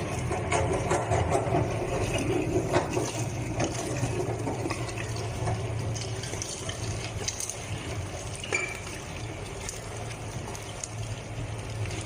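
Xuzhong XZL-32A electric meat grinder running, its motor giving a steady hum. Wet squelching and scattered clicks come from meat being minced, busier in the first few seconds.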